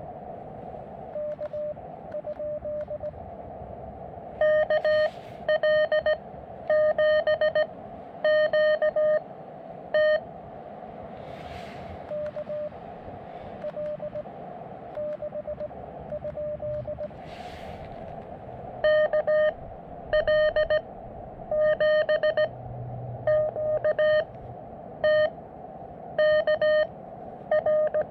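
Morse code on a portable QRP ham transceiver: a steady pitch of about 600 Hz keyed in dots and dashes over the hiss of a narrow CW filter. A fainter, purer received signal alternates with stretches of louder, harsher keyed tone, the sidetone of the operator's own sending, which runs for several seconds twice.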